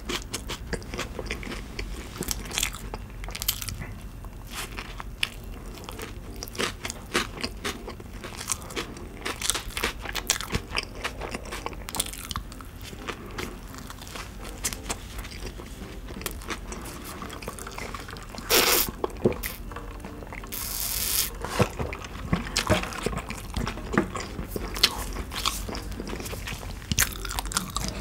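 Close-miked chewing of crispy fried food: irregular crunching with wet mouth sounds. There are two louder crunchy bursts about two-thirds of the way through.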